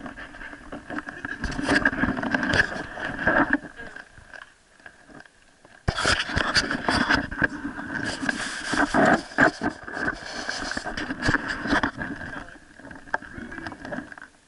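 Rubbing, scraping and knocking from a camera worn on a Springer Spaniel puppy as it moves about, with many small clicks. A couple of seconds go much quieter about four seconds in before the rubbing picks up again.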